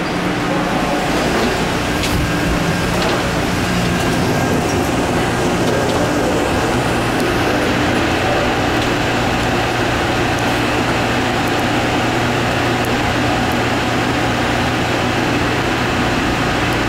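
Denver International Airport's rubber-tyred automated people-mover train running at speed through its tunnel, heard from inside the car: steady rolling noise with a low motor hum that grows stronger about seven seconds in.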